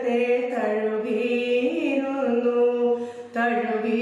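A woman singing a devotional chant solo and unaccompanied, in long held notes with slow slides between pitches.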